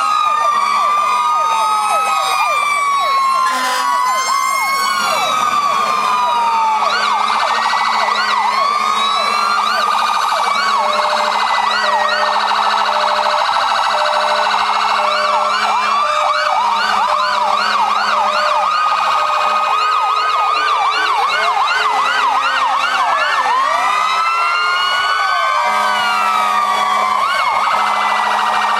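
Several fire engine sirens sounding at once, their slow rising and falling wails overlapping with fast yelps, over a low steady tone that starts and stops several times.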